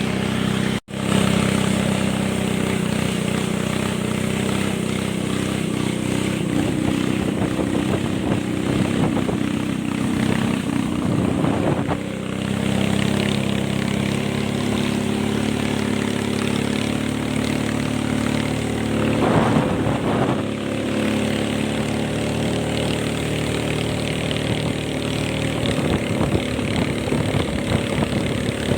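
Boat engine running steadily while under way, the sound cutting out for an instant about a second in.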